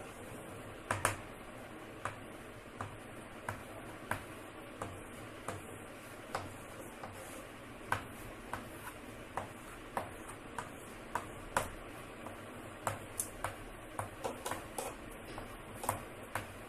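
Chalk tapping and scraping on a blackboard as short lines and small circles are drawn: a string of separate short clicks, about one a second at first, coming faster near the end.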